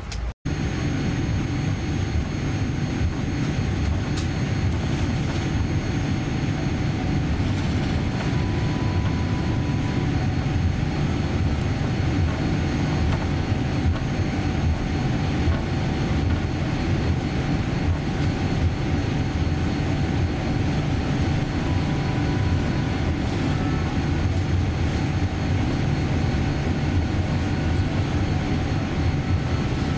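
Steady cabin noise inside a Boeing 787-10 taxiing on the ground: a low engine and airflow rumble with faint steady tones above it. It drops out for an instant just after the start.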